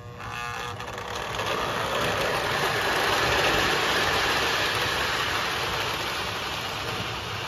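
Old O scale model freight train running past close by: a steady rush of wheels on track that builds over the first two seconds and slowly fades, over a low electrical hum.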